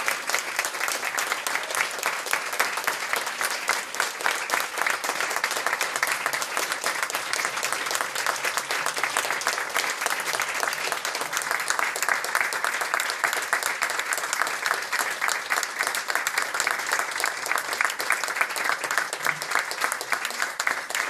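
Audience applauding steadily, many hands clapping in a small room.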